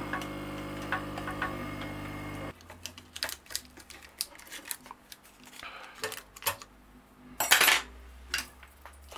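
A workbench electrical tool's motor hums steadily, then is switched off and stops abruptly about two and a half seconds in. After that come light metallic clicks and clinks, and a short crinkle of aluminium foil near the end as a foil-masked circuit board is handled.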